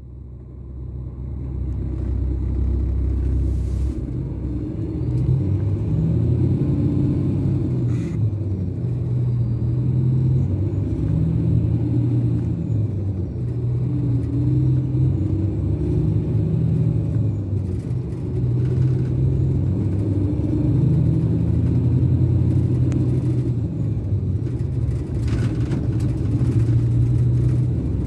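Scania K410 coach's DC13 inline six-cylinder diesel running under way, heard inside the cabin on the upper deck: a steady low drone whose pitch shifts up and down with engine speed. It fades in over the first couple of seconds.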